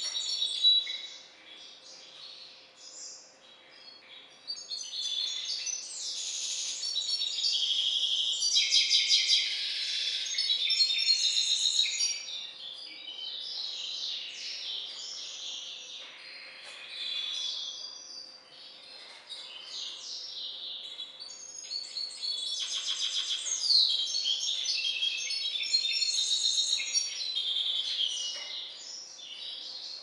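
Goldfinch × canary mule, a hybrid sired by a Balkan goldfinch, singing: long phrases of fast, high trills and twittering broken by short pauses.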